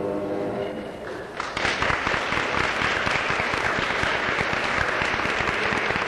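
A high school choir's final held chord dies away, and about a second and a half in the audience breaks into applause, which keeps going steadily.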